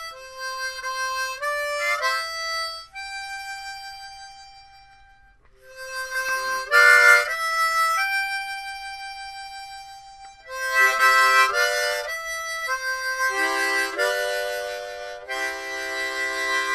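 Harmonica music: a slow tune of held notes, with chords sounding later.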